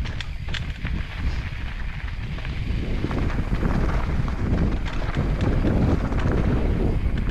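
Wind buffeting the camera microphone as a mountain bike descends a dirt trail, with a steady rumble from the moving bike. Scattered sharp clicks and rattles come from the bike, and the rumble grows a little louder after about three seconds.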